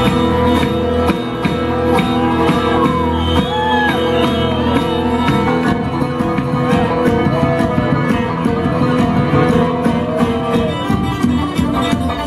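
Bluegrass band playing an instrumental break on acoustic string instruments: a steady plucked and strummed backing under a lead line of sliding, bending notes.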